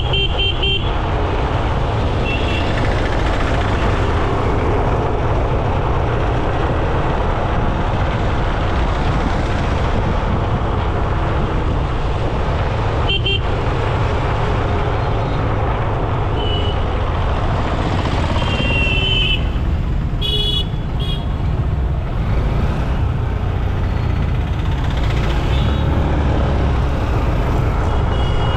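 Steady low rumble of road traffic, with several short high-pitched vehicle horn toots scattered through it, a quick cluster of them near the two-thirds mark.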